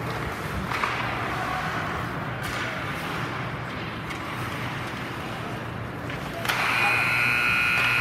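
Ice rink ambience of skates and a murmuring crowd, then about six and a half seconds in a steady arena horn sounds for a couple of seconds, signalling the end of the period.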